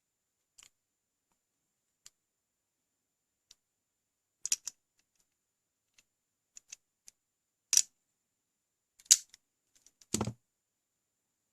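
Automatic wire stripper pliers crimping a terminal lug: a handful of separate sharp clicks and snaps of the tool's metal jaws and the lug, the loudest near the end.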